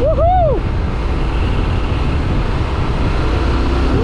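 Yamaha Ténéré 700's parallel-twin engine running under way, with steady wind rush on the microphone. A short tone rises and falls right at the start.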